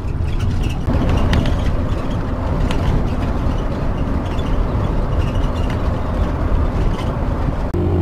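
Motorhome driving on a country road, heard from inside the cab: steady engine drone and road noise, with scattered light rattles. Just before the end, a steadier engine hum with a clear pitch sets in.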